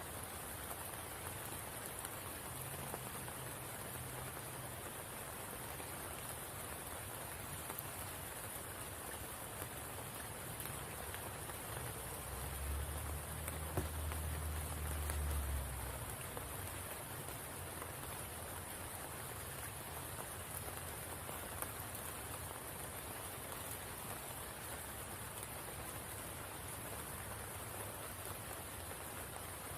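Steady rain falling on a spring pool, an even, dense patter. About halfway through, a low rumble swells for a few seconds and dies away.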